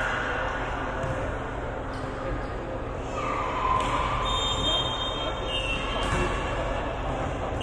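Voices of players and onlookers echoing in a sports hall during a ball game, with a ball bouncing now and then.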